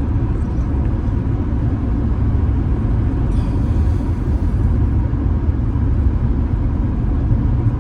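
Steady low rumble of a Honda Accord V6 being driven, engine and road noise heard from inside the cabin, with a brief faint hiss about three seconds in.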